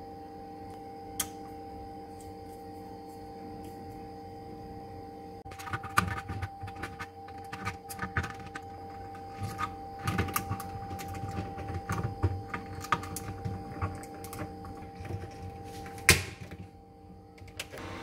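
Irregular plastic clicks and rattles as a refrigerator door light switch and its wires are handled and pushed back into the switch's mounting hole, ending in one sharp snap near the end as it seats. A steady hum runs underneath.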